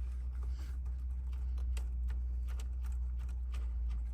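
Light, irregular clicks and taps of metal parts being handled, as the steering wheel retaining nut is started onto the steering shaft by hand, over a steady low hum that cuts off at the end.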